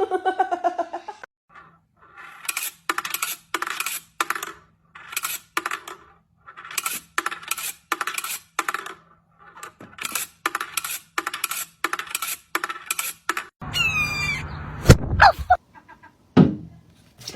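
A run of short, sharp clinks, about two a second for roughly eleven seconds. Near the end a different, noisier sound follows, with a high tone that falls in pitch.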